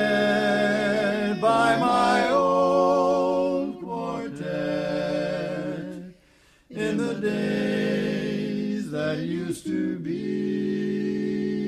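Barbershop quartet singing a cappella in four-part close harmony, holding long sustained chords, with a brief pause about six seconds in.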